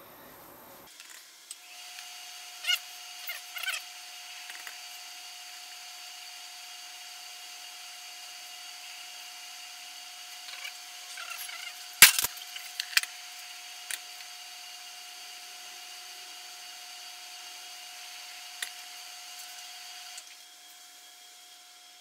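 Sped-up audio of handling a refrigerator compressor while its oil drains: a steady high hum with scattered clicks and knocks, the loudest a single sharp knock about halfway through.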